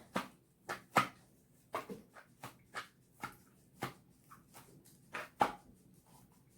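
Slime being squished and worked by hand, giving sharp irregular pops and clicks about two or three a second that stop shortly before the end.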